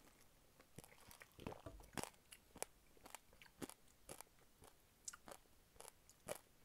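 Faint, irregular crunching and clicking of a person chewing the crunchy chia seeds from a sip of iced fruit tea.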